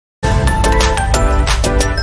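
Intro music with a heavy bass and a steady beat, starting a moment in.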